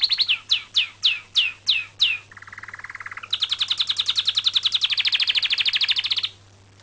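Electronic car alarm siren cycling through its tones: fast high chirping pulses, then six falling whoops, then a lower fast warble, then fast high chirping again, cutting off suddenly about six seconds in. Its chirps sound bird-like.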